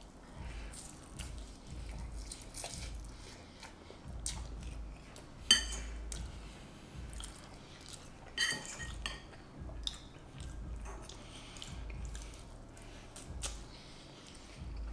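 Eating a bowl of ramen noodles with a fork: the fork clinks against the bowl between soft chewing and mouth sounds. The sharpest clink comes about five and a half seconds in, with another near eight and a half seconds.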